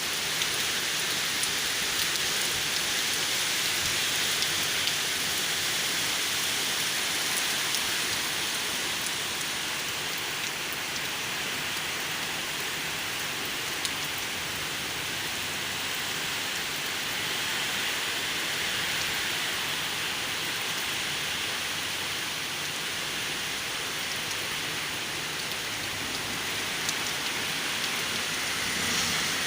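Heavy storm rain pouring steadily, a dense, even hiss.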